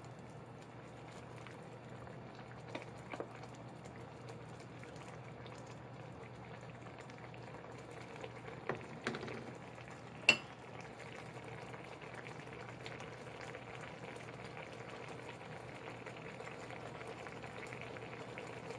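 Clam broth with komatsuna greens bubbling at a steady boil in a saucepan. A few light knocks come from stirring with a wooden spatula, and one sharp clink comes about halfway through.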